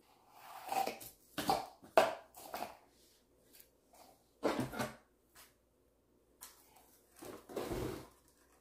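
Handling noises of wreath-making on a table: irregular rustles and brushing of artificial pine picks and grapevine, with a few sharp clicks and knocks. A longer, fuller rustle and knock near the end as the red cutout truck sign is laid onto the wreath.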